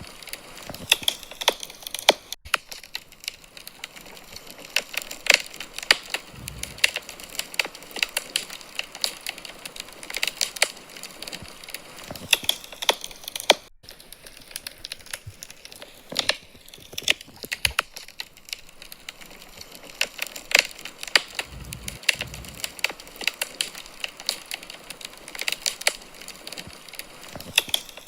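Wood fire crackling in a fireplace: dense, irregular pops and snaps over a steady hiss, with a couple of soft low thumps.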